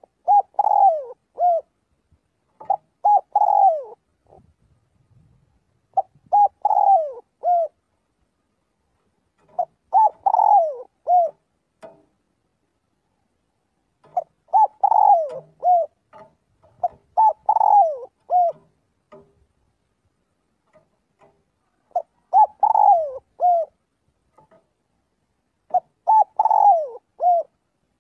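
Spotted dove cooing: a phrase of a few short coos with a falling note in it, repeated about eight times with short pauses between.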